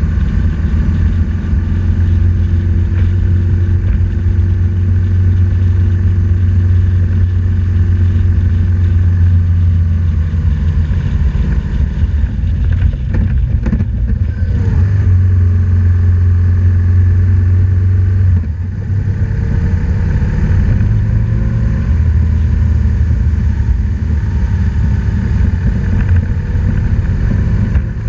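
BMW R1200GS flat-twin engine running steadily under way, heard close up from a camera mounted on the bike. The engine note dips briefly about two-thirds of the way through, then picks up again.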